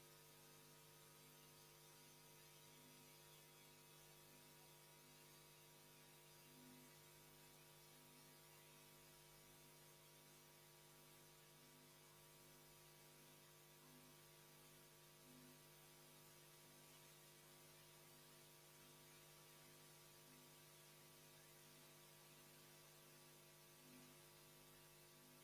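Near silence: faint steady electrical hum with a low tone pulsing about twice a second.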